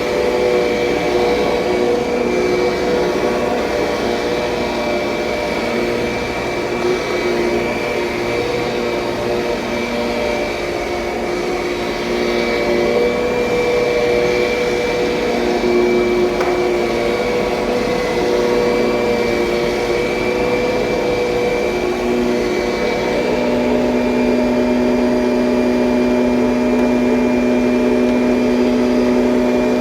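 2007 Kirby Sentria upright vacuum cleaner running steadily, its motor hum and whine shifting slightly in pitch as it is worked, with a low hum growing stronger near the end.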